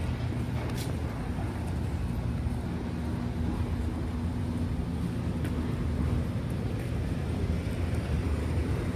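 City street ambience: a steady low hum of urban traffic, with a couple of faint clicks.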